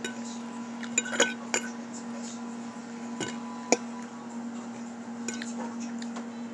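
Metal fork clinking and scraping against a ceramic dinner plate while scooping up food: about half a dozen sharp clinks, the loudest about three and a half seconds in.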